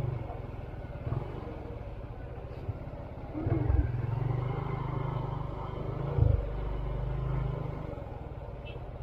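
Motorcycle engine running as the bike rolls slowly along. The engine sound swells louder from about three and a half seconds in until about seven and a half seconds in, with a couple of low thumps along the way.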